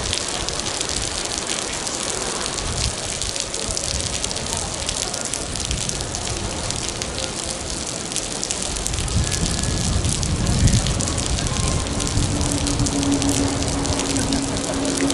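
Heavy typhoon rain pattering steadily on a surface close by. From about nine seconds in a low rumble swells underneath, and a steady low hum joins near the end.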